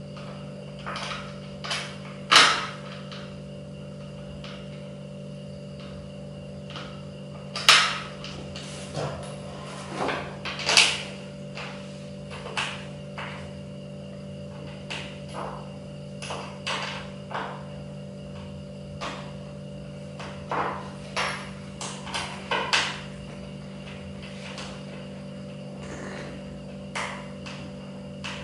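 Irregular knocks and clicks of an office chair's plastic and metal frame parts being fitted together during assembly, with three sharper knocks standing out, at about 2, 8 and 11 seconds in. A faint steady hum runs underneath.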